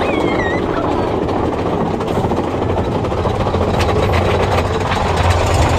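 Big Thunder Mountain Railroad mine-train roller coaster running along its track: a steady rumble and rattle of the cars, with wind buffeting the phone microphone. A brief high squeal at the start and some clattering about four seconds in.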